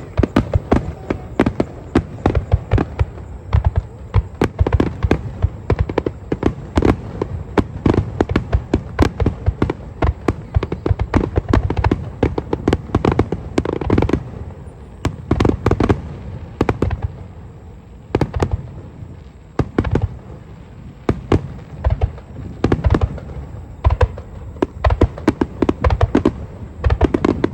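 A fireworks finale barrage: aerial shells bursting in rapid succession, a dense run of overlapping booms and crackles that thins briefly about two-thirds of the way through before picking up again.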